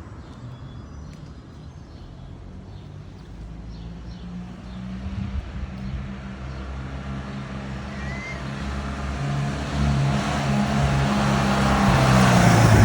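1970 Fiat 500's small air-cooled two-cylinder engine running as the car drives up, getting steadily louder as it comes closer.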